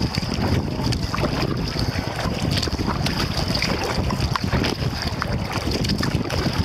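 Wind rumbling on the microphone of a camera mounted on a kayak, with the splash and drip of double-bladed paddle strokes heard as many small scattered ticks.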